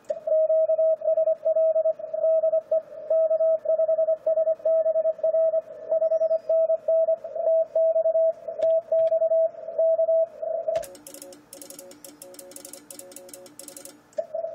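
Morse code from an Icom IC-756PROIII transceiver on 10-metre CW, a single steady tone keyed fast at contest speed, for about ten seconds. It then stops, and a quick run of computer-keyboard clicks follows, with weaker Morse signals at lower pitches underneath. The loud tone comes back just at the end.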